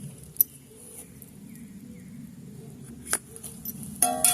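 A couple of sharp light clicks, then a metal clank that rings on several tones near the end: metal cookware being struck as butter is put into a pot.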